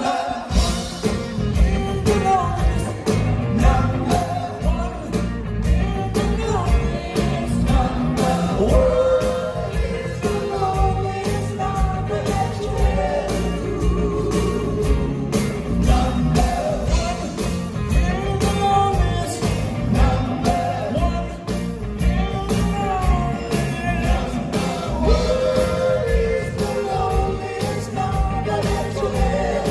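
A live rock band playing, with male voices singing a melody over electric guitars and steady drums, recorded from the audience.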